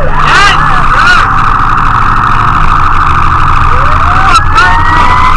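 Fire engine siren sounding over the truck's engine: quick yelping chirps in the first second, then a steady wail, with a second siren tone rising in pitch from about four seconds in.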